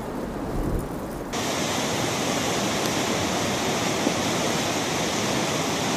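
Floodwater rushing down a swollen stream channel: a steady, even rush of turbulent water. About a second in, it changes abruptly from a duller, deeper rush to a brighter, fuller one.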